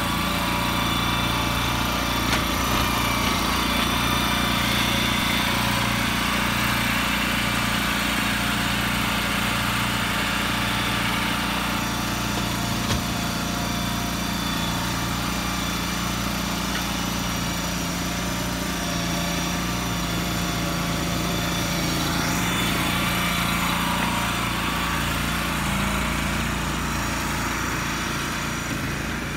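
Small engine of a motorized shed mover running steadily under load as the machine pushes and steers a large shed.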